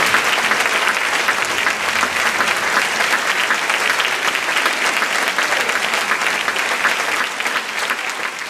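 Audience applauding steadily: a dense, continuous patter of clapping hands.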